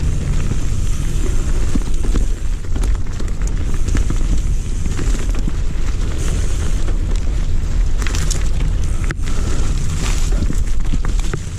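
Wind buffeting the microphone over a steady rumble of mountain-bike tyres on a dirt trail, with scattered clicks and rattles from the bike.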